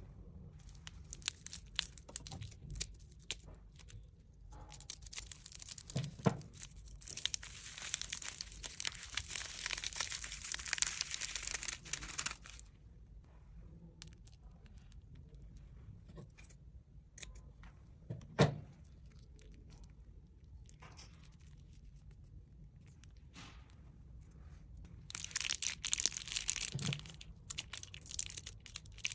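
Slime being stretched and pressed close to the microphone, giving crackling, crinkly tearing noises: scattered pops, two longer stretches of dense crackle, and a few soft thuds.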